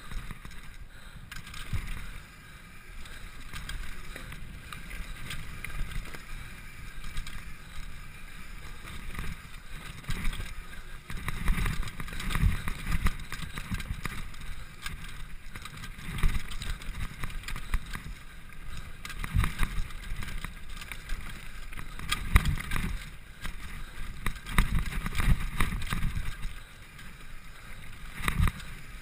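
Mountain bike riding fast down a dirt trail: tyres rolling over dirt and roots, with the bike rattling and clattering over the bumps, and low rumbling surges of wind and impacts on the camera microphone.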